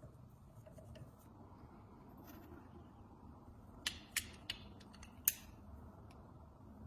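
Four sharp clicks within about a second and a half, the last the loudest with a brief ring after it, over a faint low background.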